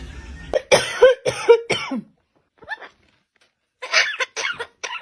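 Parrot mimicking a human cough: a run of short coughs about half a second in, then another run near the end.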